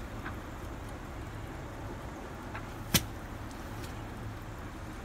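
An unseen animal hiding in the scrap making a weird sound: a few brief, faint high calls over a steady low rumble. One sharp click about three seconds in is the loudest thing heard.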